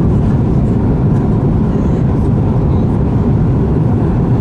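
Steady low rumble of engine and airflow noise inside the cabin of an Airbus A330 airliner, even throughout with a faint steady hum above it.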